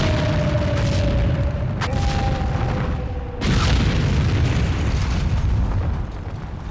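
Gas-station explosion in a film: sudden blasts with a heavy low rumble throughout, a sharp crack about two seconds in and a bigger blast about halfway through.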